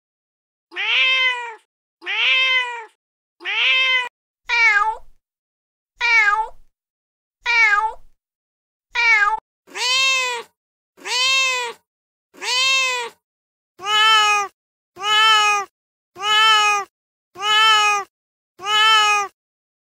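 Recorded domestic cat meows played one after another from a cat-sound app: about fifteen separate meows, each rising then falling in pitch, with clean silent gaps between. The first seven are shorter and more irregularly spaced; from about halfway the meows are longer and come at an even pace of roughly one a second.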